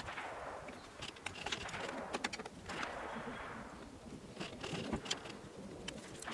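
Scattered small clicks and ticks of Phillips screws being backed out and plastic steering-wheel trim being handled, with a bird calling in the background.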